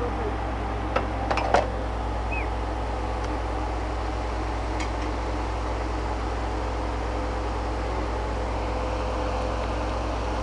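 Core-drilling rig's engine running steadily with a low drone and a constant hum, with a few sharp metallic clanks about a second and a half in as steel drill rods are handled.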